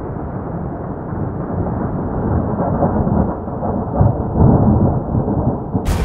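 Rolling thunder: a continuous deep rumble that swells about four seconds in, with a short sharp crack just before the end.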